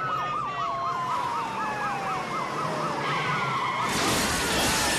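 Police car sirens: a fast yelp warbling about four times a second over a slower wail that falls in pitch. Three to four seconds in, a loud rush of tyres spinning on dirt and gravel drowns the sirens out.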